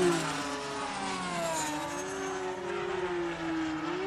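F5D-class electric pylon-racing model planes, their motors and propellers whining at full speed. Several tones overlap, each rising and falling in pitch as the planes pass, loudest right at the start.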